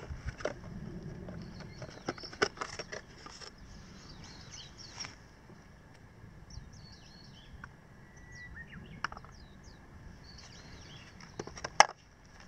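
Small birds chirping in short high calls through the middle, over clicks and knocks of plastic as the RC buggy's body shell is unclipped and lifted off the chassis in the first few seconds. One sharp click, the loudest sound, comes near the end.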